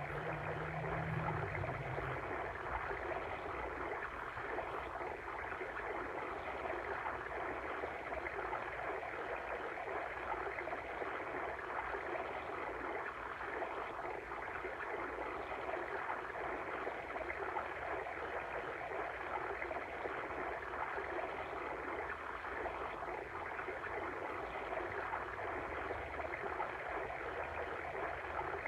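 Steady flowing water of a stream, an even rushing babble with no breaks. A brief low hum sounds about a second in.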